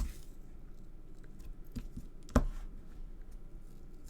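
A few light taps and one sharper knock about two and a half seconds in, as card and a stamping block are handled and pressed down on the craft table.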